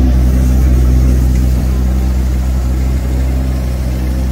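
Car engine idling with a low, steady note.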